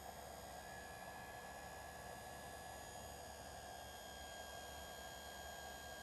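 GE dishwasher wash pump motor running nice and quiet. It makes a faint steady hum, and a thin high whine comes in about half a second in.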